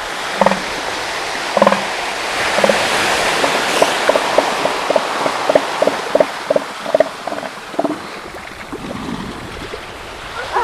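Elephant seals calling over steady surf. A couple of separate grunts come in the first two seconds, then a run of evenly spaced pulses, about three a second, lasts some five seconds.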